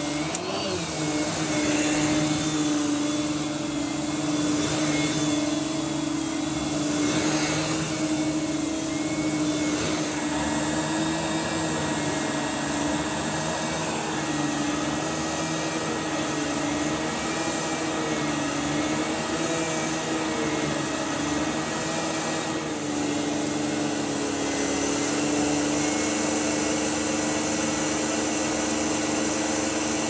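A 1993 Numatic Henry HVR200 cylinder vacuum runs steadily with its turbo electric brush head being pushed back and forth over carpet. The motor's hum wavers slightly in pitch as the head moves, over a constant rush of suction air. There is a brief click about a third of a second in.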